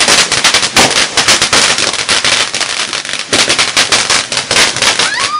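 A firework crackling with rapid, dense cracks and pops, many a second, loud throughout, with heavier stretches at the start and again about three seconds in.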